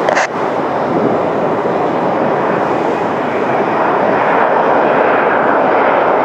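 McDonnell Douglas MD-11 freighter's jet engines, a steady loud rushing roar.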